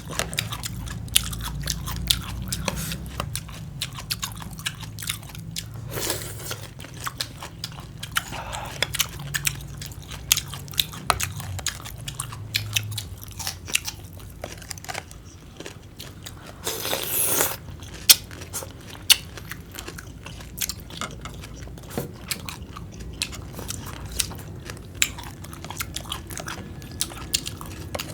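Chewing and crunching of green papaya salad with cucumber: a steady run of sharp crisp crunches and mouth clicks, with one short louder noisy burst a little past the middle.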